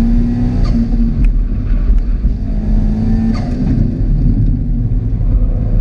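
2006 Subaru WRX STI's turbocharged 2.5-litre flat-four running under load, heard from inside the cabin as a loud low rumble, with a few sharp clicks.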